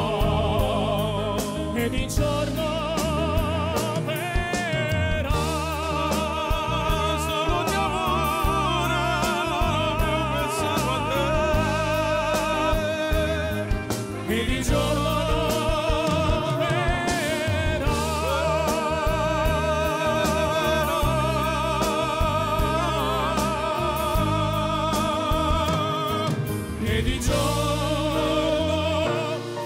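Live band music with drums under a sustained, wavering vibrato melody, with singing in it; the sound dips briefly near the middle and again near the end.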